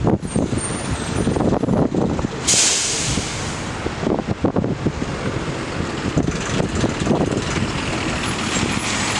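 School bus air brakes letting out a sudden sharp hiss about two and a half seconds in, which fades over about a second. Under it a bus engine runs, with wind buffeting the microphone.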